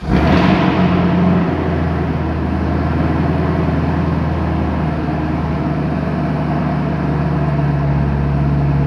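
A Chevrolet Camaro ZL1's supercharged 6.2-liter V8 with an MBRP aftermarket exhaust starting up inside the cabin: it fires with a loud flare, then settles into a steady idle. The exhaust is pretty loud.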